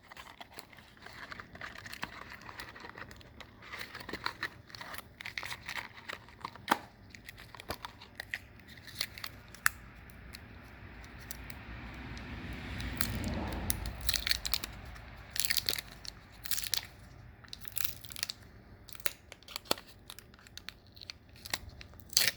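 Crinkling, tearing and clicking of packaging and tire repair plug strips being handled and pulled apart, in irregular bursts. A low rushing swell rises and fades a little past the middle.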